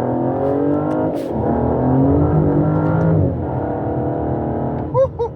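Aston Martin DBS V12 engine accelerating hard: the revs climb, drop at a gear change about a second in, climb again, then fall back about three seconds in to a steadier, lower pitch.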